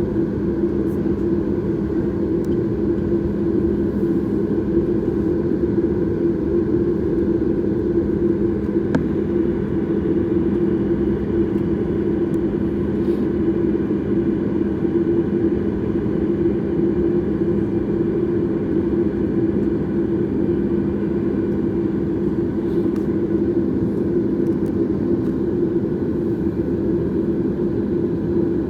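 Steady jet engine cabin noise inside a Boeing 737 MAX under power during departure: its CFM LEAP-1B engines give a constant low rumble with a steady two-note hum.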